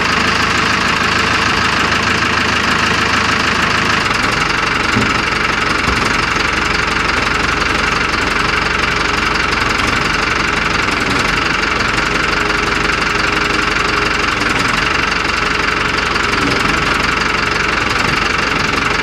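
Backhoe engine running steadily and loud, close to the microphone, with a knocking clatter.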